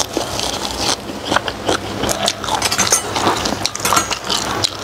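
Close-miked chewing of soft steamed pork skin: wet mouth smacks and clicks, several a second.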